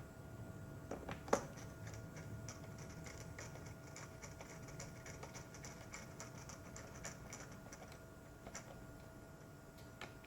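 Faint rapid clicking of a screwdriver turning small case screws into a laptop's plastic casing, with one sharper click about a second in.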